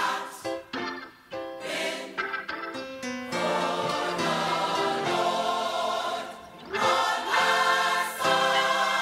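Gospel mass choir singing, recorded: short, separated chordal phrases for about the first three seconds, then long held chords, with a brief break about two-thirds of the way through.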